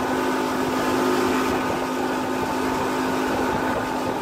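Outboard motor running the boat at speed, a steady engine drone with a few held tones, over the rush of the churning wake.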